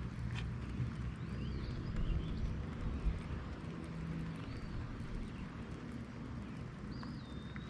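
Outdoor ambience: a low, steady rumble with a few faint, high, gliding bird calls.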